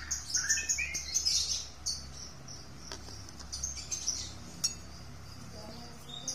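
Birds chirping in the background, a run of quick high chirps in the first couple of seconds that then thin out, over a steady faint hiss. A couple of faint clicks fall near the middle.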